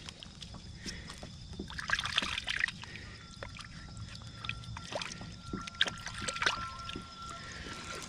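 Water sloshing and splashing in a shallow river pool as a stone is swished and scrubbed by hand underwater to wash the mud off it. The splashing comes in irregular bursts, busiest about two seconds in.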